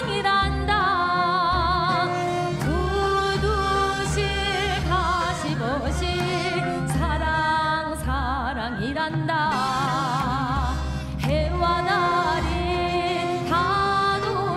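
A singer in Korean traditional gugak style sings a sustained, heavily ornamented melody with wide vibrato, over instrumental accompaniment with a steady low beat.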